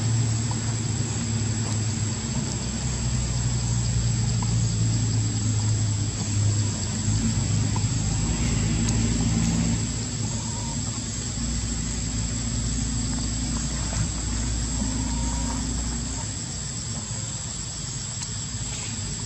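A steady low engine drone running throughout, with a constant thin high tone above it; it eases slightly in level about ten seconds in.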